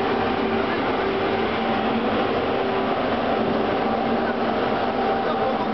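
Blowers of a WCAM3 electric locomotive running on DC supply: a steady rushing hum with a few held low tones, unchanging in level.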